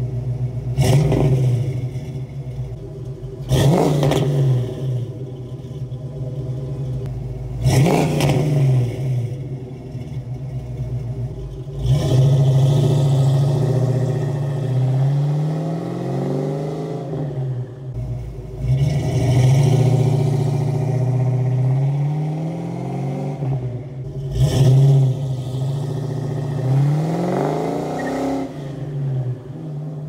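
Fox-body Ford Mustang V8 exhaust through Flowmaster two-chamber mufflers: three sharp revs from idle, then the car pulls away and accelerates, the pitch climbing and dropping back several times as it shifts.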